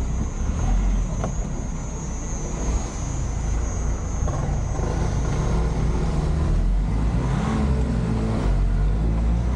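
Truck engine running and pulling, heard from inside the cab while driving in slow city traffic. A thin high whine sounds over it and stops about six seconds in.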